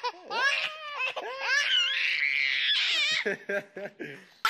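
A baby laughing: high-pitched squealing laughs that swoop up and down in pitch, then a string of short, quick laugh pulses near the end.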